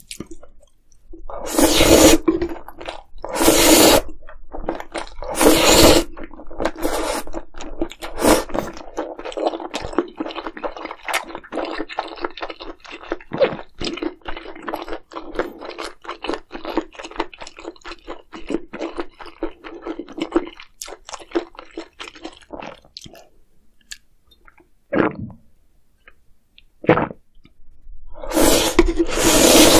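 Close-miked mukbang eating sounds: chewing with dense, crackly clicks, broken by a few loud bursts about a second long, three near the start and one at the end.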